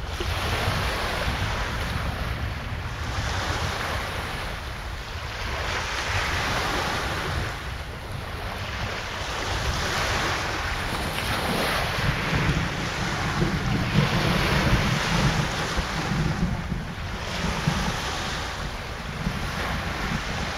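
Wind buffeting the microphone over waves breaking on the Lake Michigan shore, the noise swelling in surges every few seconds, with a deeper low rumble for several seconds past the middle.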